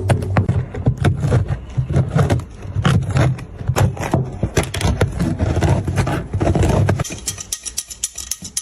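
Hands-on cleaning work on a sneaker: rough scraping and scrubbing strokes with many sharp clicks and knocks. The heavy low strokes stop about seven seconds in, leaving lighter clicking.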